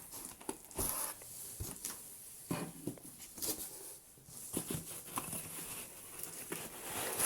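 Cardboard and plastic packaging rustling, with scattered light clicks and knocks, as 3D-printer parts are lifted out of their box.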